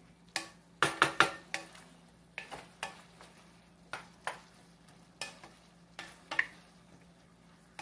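A spatula stirring and scraping ground pork and sliced hot dogs in a stainless steel frying pan: a run of sharp scrapes and knocks against the pan, loudest in a quick cluster of three about a second in, over a faint sizzle of the frying meat.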